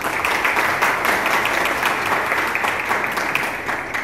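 Crowd of people applauding with many hands clapping, dying away near the end.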